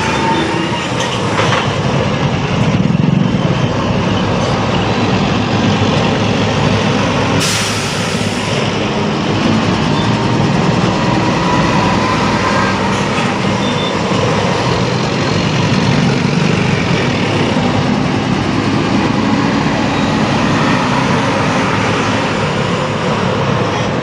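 Steady noise of heavy road traffic at a standstill or crawling, with vehicle engines running. About seven and a half seconds in there is a brief, sharp hiss.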